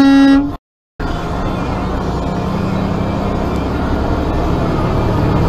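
A semi truck's horn sounds briefly and cuts off, followed by a short gap of silence, then the steady low rumble of the truck's engine and road noise heard from inside the cab.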